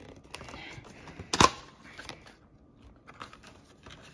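Cardboard retail box being opened by hand: light scraping and rustling of paperboard, with one sharp snap about one and a half seconds in as the top flap comes free, then a few small clicks of card.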